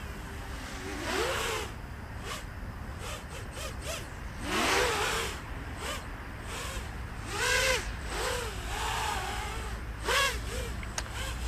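Diatone GT-M515 racing quadcopter's electric motors and three-blade propellers buzzing in flight, swelling four times, about every three seconds, as the pitch swings up and back down with the throttle bursts. A steady low rumble runs underneath.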